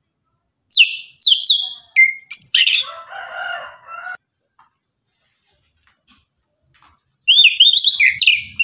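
Chestnut-capped thrush singing loudly in two bursts. About a second in comes a phrase of sharp, falling whistled notes that turns into a lower, rougher warble. After a pause of about three seconds, a rapid run of up-and-down whistled notes starts near the end.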